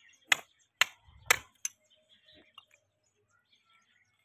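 A small hammer strikes the back of a hoof-trimming blade held against a horse's hoof four times, about half a second apart, with sharp metallic clinks, as the blade cuts through the hoof wall. The third strike also gives a dull thud.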